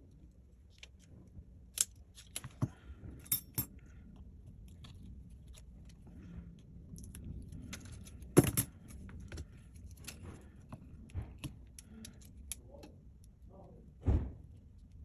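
Small clicks and taps of tools and phone parts being handled while a Samsung Galaxy A70 is put back together, as flex-cable connectors are pressed into place. There is a sharper, louder click about eight seconds in and a duller knock near the end.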